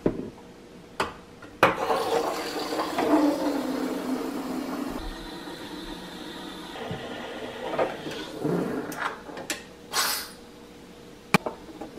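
Gaggia Classic espresso machine's steam wand hissing and gurgling as it steams milk in a stainless steel pitcher, starting sharply a couple of seconds in with a falling tone over the first few seconds. A few knocks near the start and a click near the end.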